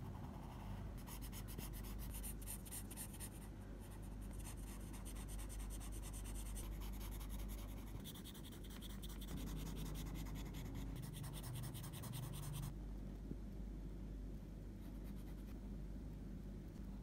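Felt-tip markers scratching on notebook paper: rapid back-and-forth colouring strokes that stop suddenly about 13 seconds in, followed by quieter pen strokes.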